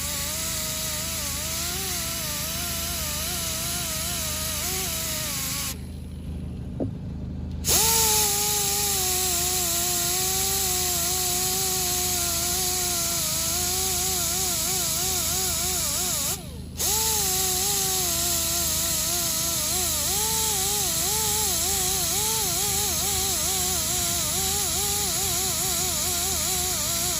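Rotary power tool spinning a red surface-conditioning disc against an alloy wheel, grinding the old repair and damage down to bare metal; its pitch wavers as the disc is pressed on and eased off. It stops about six seconds in, spins back up under two seconds later, and cuts out briefly once more about sixteen seconds in.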